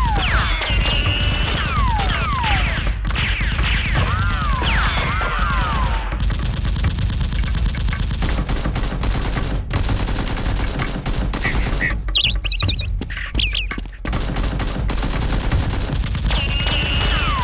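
Rapid, continuous automatic gunfire sound effects, with falling whistling sweeps through the first few seconds.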